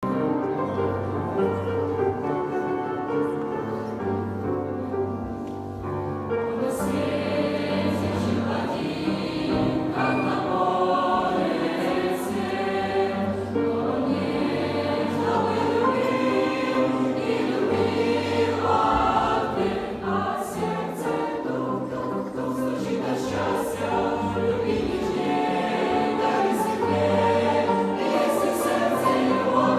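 A Christian song sung by a choir over instrumental accompaniment with steady sustained bass notes; the arrangement fills out about seven seconds in.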